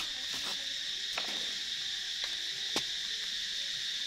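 Steady high-pitched chorus of insects, with a few light clicks and crackles from hands handling a coco-coir root ball.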